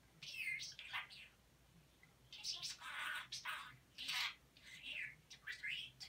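Budgerigar chattering in quick high-pitched bursts of warbles and whistles mixed with speech-like mimicry: a short burst at the start, then a longer run from about two seconds in.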